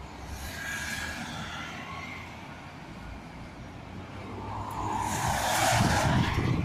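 Dual-carriageway traffic passing: engine and tyre noise from lorries and cars, with a steady rumble. It builds to a louder, closer pass-by of cars in the near lane, loudest about five to six seconds in.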